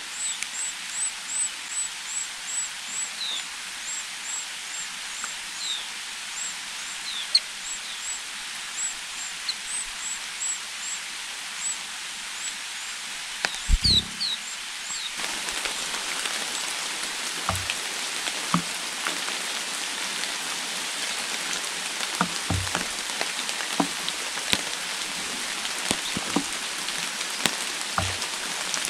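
High, thin chirps from white-eyes at the nest, repeated about twice a second through the first half. About halfway an even hiss comes up and carries on, with a few dull knocks here and there.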